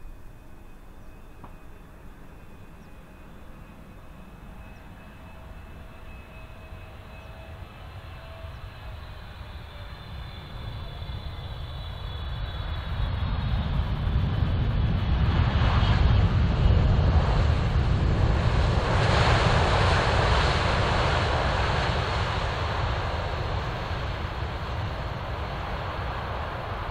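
Boeing 777-300ER's GE90 turbofans landing: a faint engine whine on approach drifting slightly down in pitch, then after touchdown a broad rumbling roar of reverse thrust that swells to its loudest a little past halfway and slowly fades as the jet rolls out.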